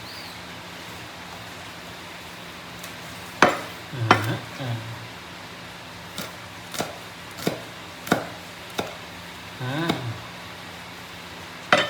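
Knife chopping on a cutting board: about eight sharp, irregular chops starting about three seconds in, over a steady background hiss.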